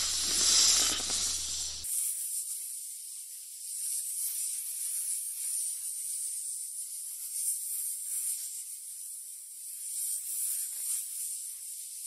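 Snake hissing: long breathy hisses, one after another, each swelling and fading every few seconds. They begin abruptly about two seconds in, after a short stretch of rushing noise.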